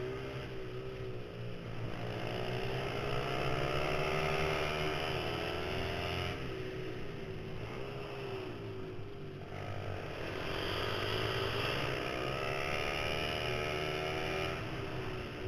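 Small single-cylinder four-stroke pit bike engines (Honda 50cc class) revving hard. The pitch climbs through each straight and drops off twice as the throttle closes for corners. A second bike runs close ahead.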